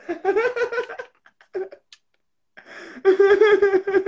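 A man laughing hard in high-pitched bursts: a long wavering laugh, a short pause, then a run of quick pulsing laughs near the end.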